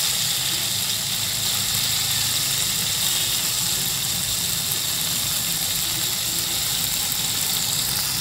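Boiled olives sizzling steadily in hot oil in a stainless steel pan, over a steady low hum.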